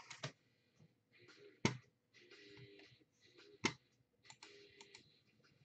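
Scattered clicks and faint rustling handling noise close to the microphone, with two louder sharp clicks about two seconds apart.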